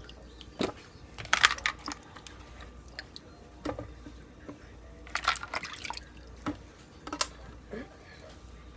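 Washed, salted potatoes being set into a baking pan: a series of short knocks and soft wet thuds, with clusters about a second and a half in and about five seconds in.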